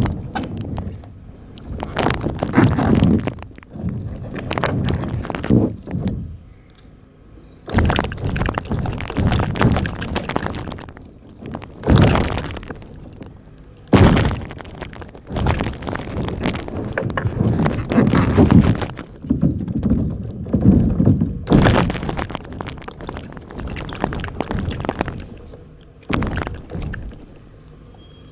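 Balloons popping one after another, over a dozen sharp bursts, each trailing off over a second or so.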